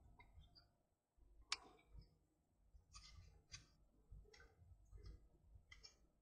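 Near silence with faint, scattered clicks and small handling noises as hands fit stranded wire onto a plastic coil-winding former; one sharper click comes about one and a half seconds in.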